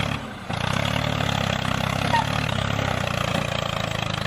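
Tractor engine running steadily with a low hum, dropping away briefly just after the start.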